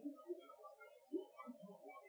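Faint playback of a field recording with its hiss filtered out: a steady low hum under many short, scattered blips and warbles at random pitches. The uploader takes these for Bigfoot calls.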